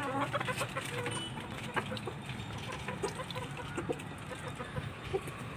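Chickens clucking: short, scattered clucks, with a few light knocks among them.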